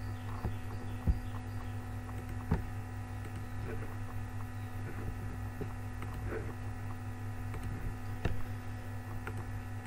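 Steady electrical hum from the recording setup, with three sharp computer mouse clicks standing out about one, two and a half and eight seconds in, and a few fainter clicks between them.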